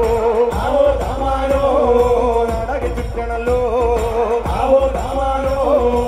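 Live amplified folk band music: a wavering melody line over a steady drum beat.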